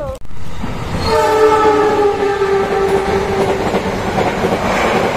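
Passenger train's horn sounding one long blast of about two and a half seconds from about a second in, its pitch sagging slightly. Then the rumble and wheel clatter of the moving train grows louder.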